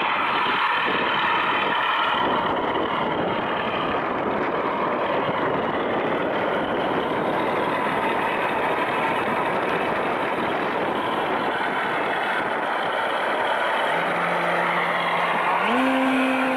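Radio-controlled scale biplane's engine and propeller running steadily as it taxis out. Near the end the engine note steps up as the throttle opens for the takeoff run.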